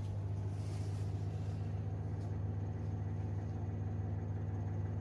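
Electric oven running with a steady low hum from its fan while it bakes.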